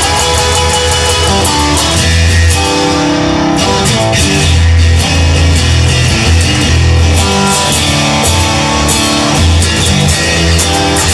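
Instrumental rock music with guitar, bass and drums, and no singing.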